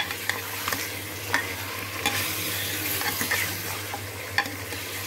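Raw mutton pieces and onions sizzling in hot oil in a pressure cooker while a steel ladle stirs them, with a few sharp clinks and scrapes of the ladle against the pot.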